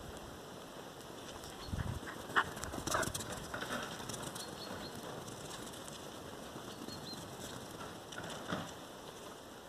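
Faint outdoor ambience in snow, with a few brief soft knocks and rustles about two and three seconds in and again near the end.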